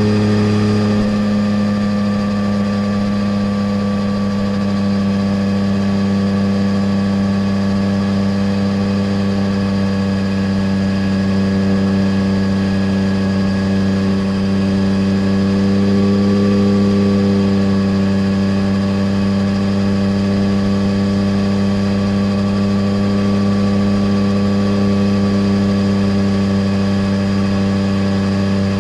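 A 2020 Yamaha Tracer 900 GT's three-cylinder engine running through a full Roads Italia aftermarket exhaust while the bike is ridden, heard from under the passenger seat. It holds steady revs, with only a slight change about a second in and small wavers in pitch.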